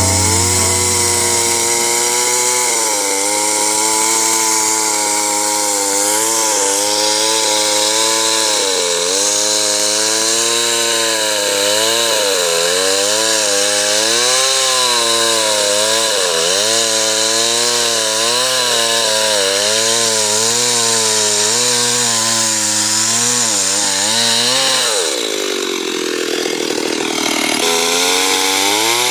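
Chainsaw running at high revs while cutting into a big tree; its pitch wavers as the chain bites and loads in the wood. Near the end it dips low for a couple of seconds, then picks up again.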